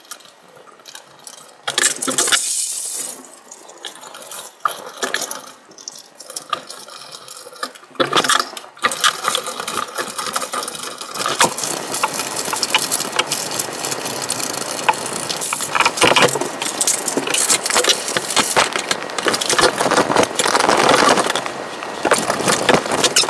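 Handling noise from assembling a fabric enclosure on a metal-tube frame: rustling and crinkling of the fabric and plastic with clicks and knocks from the metal tubes and plastic corner joints. It starts with sparse clicks and a brief rustle, then becomes a dense, continuous crinkling full of clicks from about eight seconds in.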